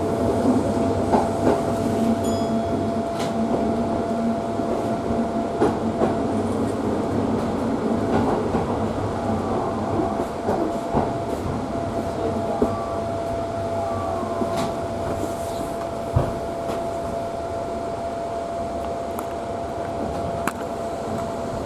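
Electric commuter train heard from inside the car: steady running noise of wheels on rail under a constant whine, with scattered clicks and brief faint wheel squeals, growing gradually quieter.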